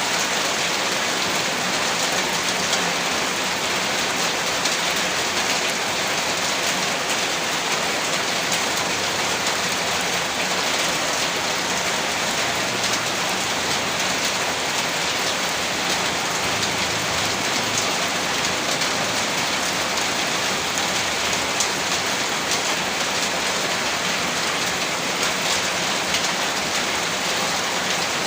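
Heavy rain falling steadily, a dense hiss made of countless drop impacts, with no lulls or thunder.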